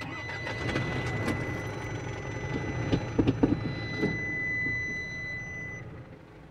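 Dashboard warning buzzer holding a steady high tone while the Isuzu ELF 300's four-cylinder diesel engine is cranked and starts, with a low rumble and a few sharp knocks midway; the buzzer cuts off near the end.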